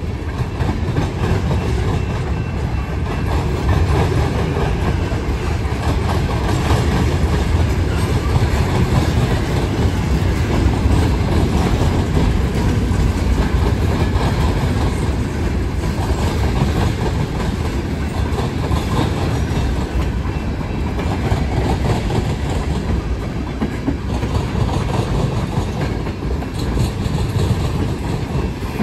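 Cars of a Norfolk Southern mixed freight train, mostly tank cars and covered hoppers, rolling steadily past at close range: steel wheels running on rail, making an even, unbroken noise strongest in the low range.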